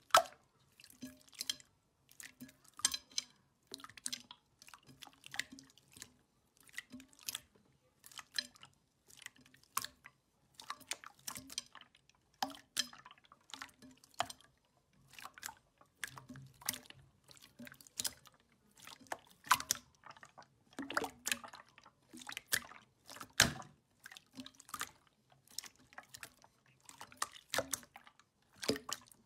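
Hands pressing and kneading a large mass of clear jelly slime: wet squelches and sharp sticky pops, in irregular clusters about once or twice a second.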